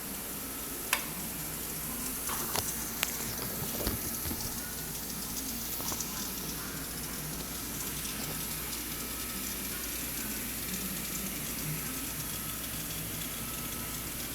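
Wire EDM machine cutting: a steady sizzling hiss of the spark cut and dielectric water flushing, with a few sharp clicks in the first four seconds.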